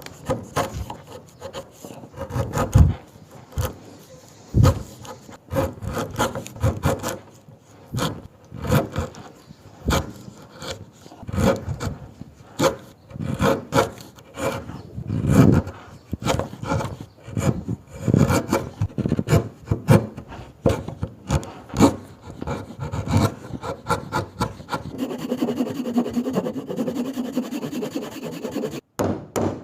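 Wood being worked by hand with a saw or rasp: repeated scraping strokes, irregular, about one or two a second. Near the end the strokes give way to a steadier sound with a low hum that stops suddenly.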